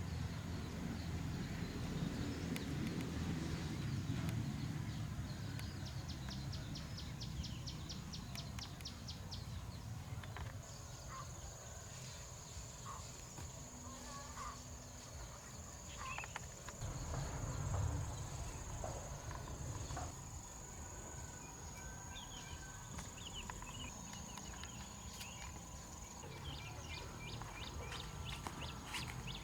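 Outdoor ambience: a steady high insect buzz and short bird chirps and trills over a low rumble.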